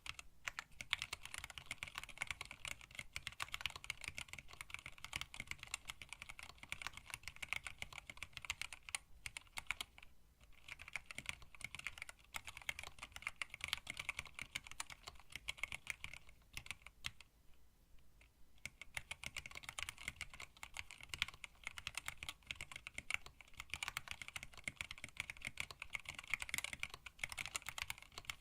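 Continuous fast typing on a hand-wired split mechanical keyboard with an acrylic case, Tealios linear switches and PBT keycaps: a quick run of key clacks, pausing briefly about ten seconds in and again for a second or two near the two-thirds mark.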